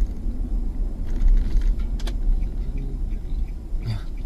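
Low, steady rumble of a car driving, engine and road noise heard inside the cabin on a dashcam microphone, with a faint click about two seconds in and another near the end.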